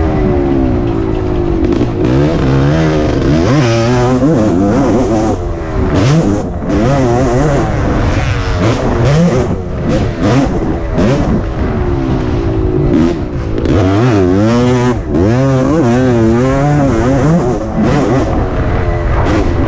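1988 Suzuki RM250's two-stroke single-cylinder engine revving up and down over and over as the bike is ridden hard, heard from on board the bike.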